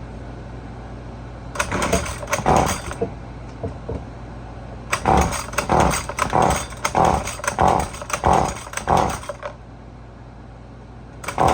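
Recoil starter cord of a Husqvarna 128LD two-stroke string trimmer being pulled in quick repeated strokes: a short burst about two seconds in, then about seven pulls roughly two a second from about five seconds in. The engine does not catch, which the owner thinks means it is flooded.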